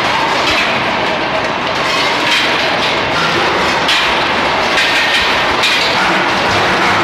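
Hot steel balls rattling and clanking as steel screw conveyors carry them up their troughs, with frequent irregular sharp metallic clanks over loud, steady machine noise.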